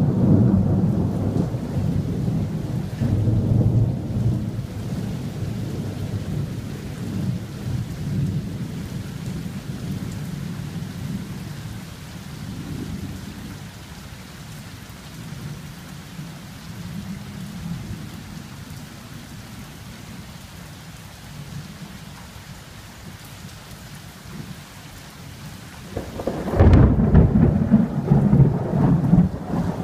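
Thunder rumbling over steady rain. A long deep roll fades away over the first dozen seconds, and a new loud thunderclap breaks in suddenly near the end and keeps rolling.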